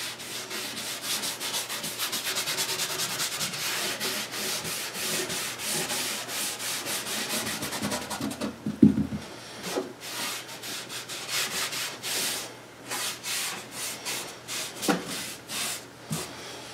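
A cloth rag rubbing back and forth over a mahogany panel, wiping on water-based dye in quick scratchy strokes. There is a single dull knock about nine seconds in. After it the strokes come fewer and further apart.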